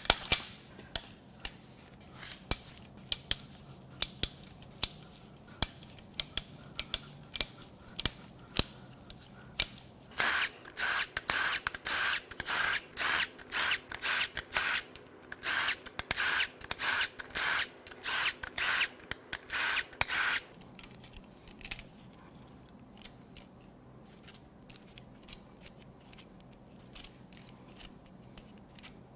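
A handheld impact wrench runs in about a dozen short bursts over roughly ten seconds, spinning out the cam cap bolts on the cylinder head of a Toyota 1GR-FE V6. Before the bursts there are scattered clicks from hand tools, and after them faint clicks of metal parts being handled.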